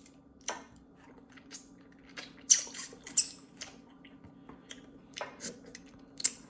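Close-up eating of crab legs: wet chewing with irregular sharp clicks and crackles of shell, the loudest two about two and a half and three seconds in, over a faint steady hum.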